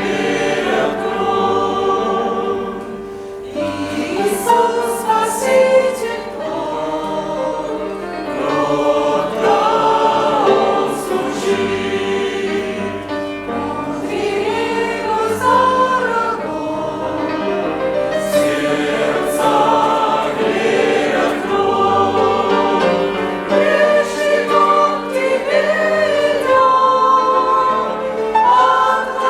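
Church congregation singing a hymn together, many voices at once.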